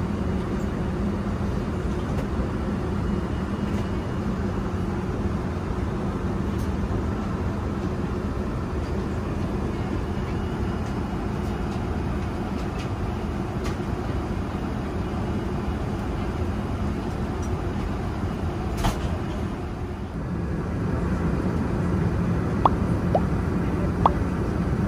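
Steady cabin noise of an Airbus A380 in cruise: an even rumble of airflow and engines with a low hum. It dips briefly about twenty seconds in, then runs a little louder, with a few faint clicks near the end.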